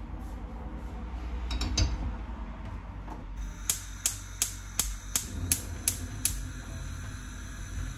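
Gas hob's spark igniter clicking, eight sharp clicks at about three a second, until the burner lights. Just before, about two seconds in, a saucepan is set down on the metal pan support with a knock.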